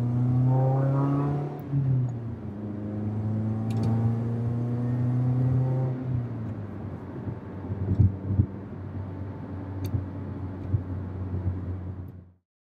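Mitsubishi Lancer's four-cylinder engine accelerating hard through a manual gearbox, heard from inside the cabin: the engine note climbs, dips at a gear change just under two seconds in, then climbs again before settling into steadier running with road noise. A couple of sharp knocks come about eight seconds in, and the sound cuts off suddenly near the end.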